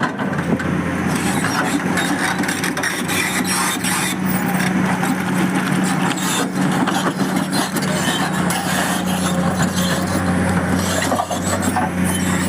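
Excavator engine running steadily, with irregular clatter and knocks over it.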